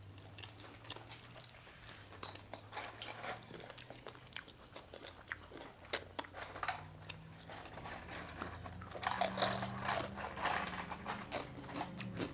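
Tortilla chips being bitten and chewed: many short, crisp crunches, thickest about nine to eleven seconds in.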